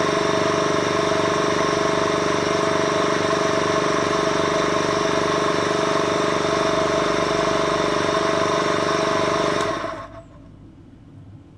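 Leybold DIVAC diaphragm vacuum pump running steadily with an even hum while evacuating a bell-jar vacuum chamber, then switched off about ten seconds in, its sound stopping abruptly to leave only a faint hiss.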